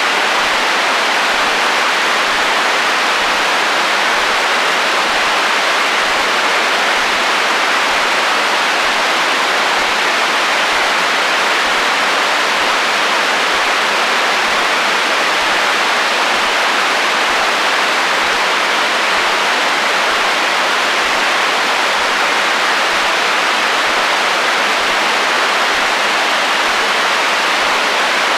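Steady, loud radio static: an untuned FM receiver's hiss, even and unbroken, with no station or tone coming through.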